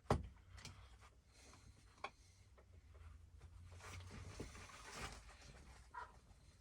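Hand rivet gun being worked on a rivet through a fabric bag strap: a sharp click right at the start, a fainter click about two seconds in and another near the end, with soft rubbing and handling noise between them.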